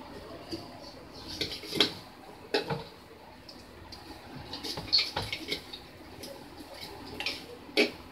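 Plastic and metal parts of a kitchen vegetable slicer clicking and clattering as it is handled and loaded, with several louder sharp knocks spread through.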